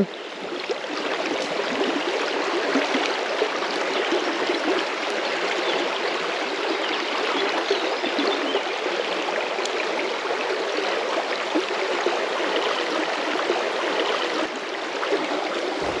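Shallow river current running over a stony bed: a steady rippling rush of water.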